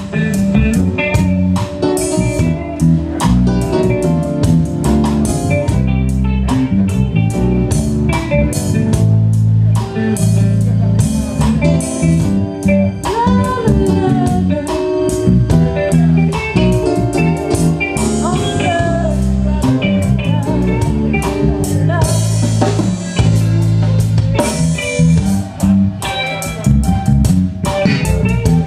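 Live reggae band playing an instrumental passage: a lead electric guitar with bent notes over drum kit and bass.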